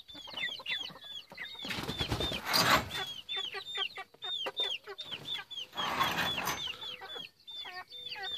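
A brood of baby chicks peeping nonstop, many short high chirps falling in pitch, several a second and overlapping. Two brief noisy swishes come about two and six seconds in.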